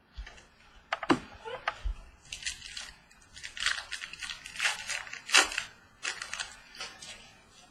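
Trading cards and pack wrappers being handled: irregular rustling and crinkling with several sharp clicks.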